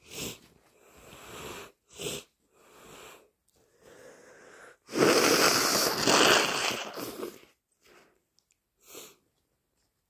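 A person with a congested nose sneezing: short bursts and catching breaths in, then a long, loud, wet stretch about five seconds in, the loudest part, and two quick sniffs near the end.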